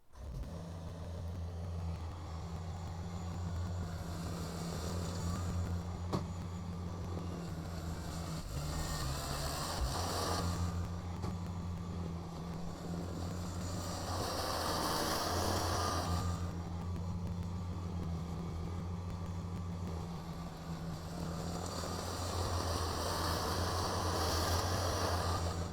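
Kubota BX compact tractor's diesel engine running steadily, with a rushing hiss that swells up and falls away three times.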